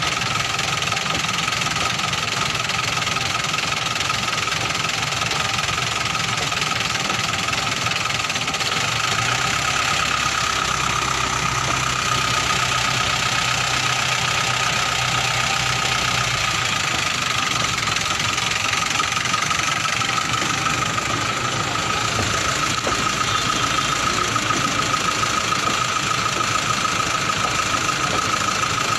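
Express passenger train's sleeper coaches running past a level crossing at speed: a steady rumble and clatter of wheels on the rails, with a steady high tone under it.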